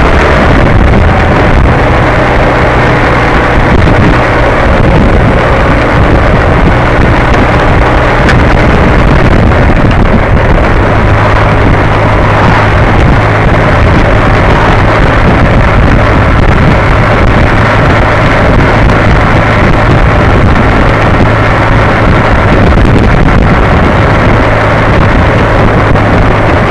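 Loud, steady engine drone mixed with heavy wind rush on the microphone, heard on board a vehicle cruising at road speed.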